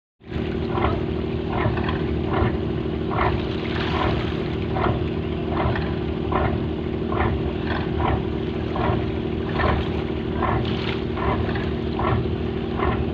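Fishing boat's engine running steadily: a low drone with an even knock about every 0.8 seconds.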